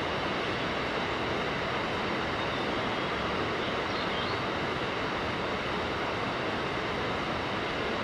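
Steady rushing of a mountain river: an even, unbroken wash of flowing water.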